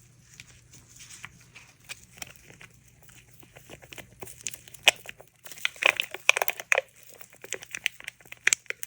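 Handling of small plastic resin mixing cups: a stir stick scraping and tapping against the plastic and the cups crinkling as pink pigment is stirred into resin. The clicks and rustles grow busier about halfway through.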